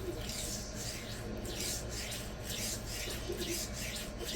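A CTS-BD1N stainless steel knife blade being stroked by hand across a resin bonded diamond sharpening stone, a rhythmic scraping hiss of about three strokes a second.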